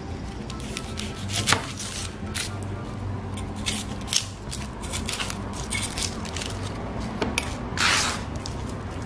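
Kitchen knife scraping and tapping on a plastic cutting board as a small red onion's skin is peeled off, in irregular short scrapes and clicks. There is a sharp tap about a second and a half in and a longer scrape near the end.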